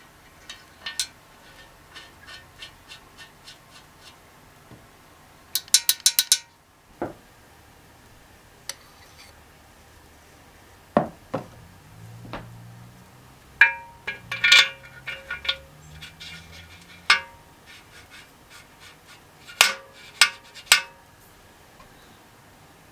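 Metal engine parts and hand tools clinking, tapping and clicking as a Kohler K301 engine is reassembled. There is a quick run of sharp clicks about six seconds in, and a cluster of ringing clinks around the middle.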